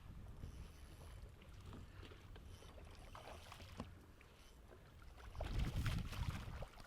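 Steady low rumble of wind and water around a fishing boat on open water, with a few light clicks, growing louder for the last second and a half.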